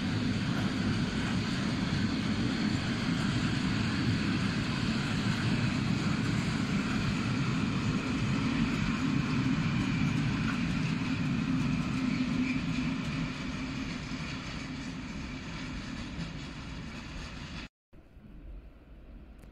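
Freight train of open-top PKP Cargo coal wagons rolling past, a steady rumble of wheels on the rails. It eases off over the last few seconds, then cuts off suddenly near the end.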